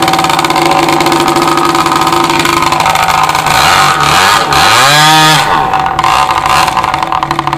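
Rossi 61 (10 cc) two-stroke glow engine in a radio-controlled MB-339 model jet, running steadily at high speed. Around the middle its pitch swoops down and then back up before settling again.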